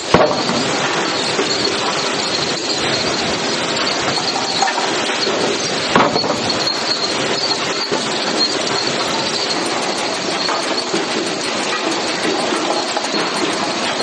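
Hardwood grading line's chain transfer conveyors running with a steady clattering rattle of chains and steel. There is a sharp knock just after the start and another about six seconds in.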